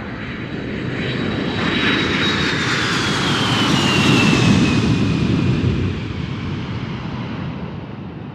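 Fighter jet flying past. Its engine noise swells, peaks about halfway through and fades away, and a high engine whine drops in pitch as it passes.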